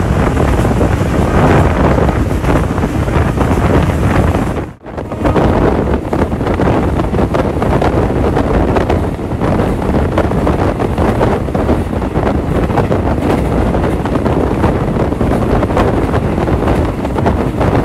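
Wind buffeting the microphone held out beside a moving passenger train, with the train's running noise underneath. The sound drops out sharply for a moment about five seconds in.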